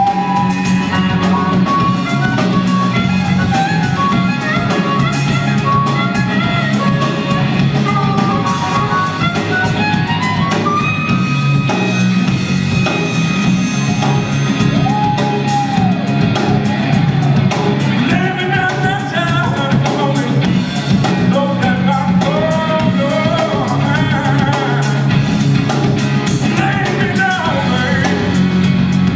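Live electric blues band with electric guitars, bass and drum kit, led by amplified blues harmonica played cupped against a handheld microphone, with held, wavering notes.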